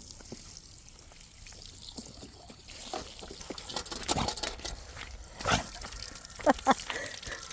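Water trickling from a water fountain, with several sudden louder splashes in the second half.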